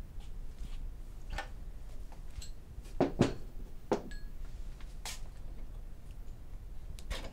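Stainless steel air tubes and other small parts of a soft serve machine clinking and knocking as they are set down on a table and handled: about five separate short clinks spread over several seconds, a couple with a brief metallic ring.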